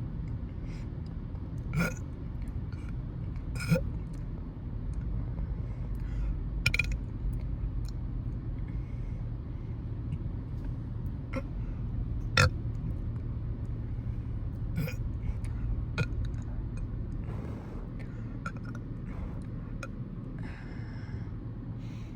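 A young woman burping in short bursts brought up from carbonated sparkling water: about six brief burps spaced a few seconds apart, the loudest about twelve seconds in, over a steady low hum.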